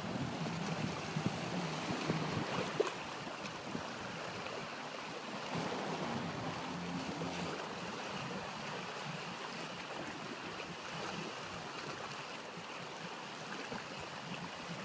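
Sea water washing against the shore, with wind noise on the microphone. A faint low hum comes and goes in the first half.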